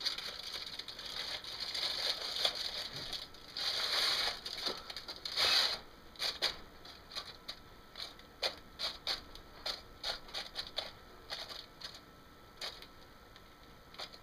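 Aluminium foil crinkling as a homemade foil cookie pan loaded with dough is handled and slid into a Coleman camp oven, followed about halfway through by a string of light clicks and taps as it is set on the rack.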